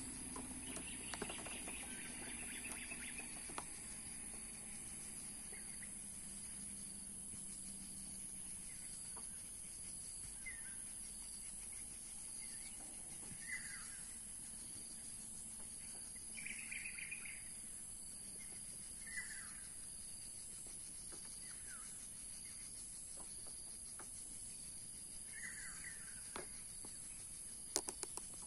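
Birds calling now and then, short chirps every few seconds, over a steady high hiss. A few sharp clicks come near the end.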